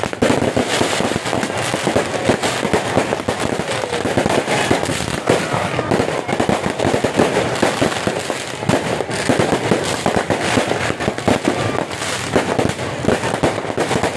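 Fireworks going off in a dense, continuous barrage of overlapping bangs and crackles, with no pause.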